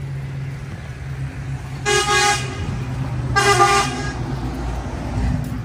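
Two short vehicle horn honks about a second and a half apart, over a steady low hum.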